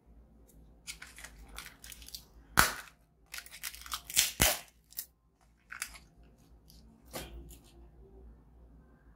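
Biscuit and snack packaging being handled and torn open: a run of crinkles and crackles, with two sharp cracks, the loudest about two and a half and four and a half seconds in.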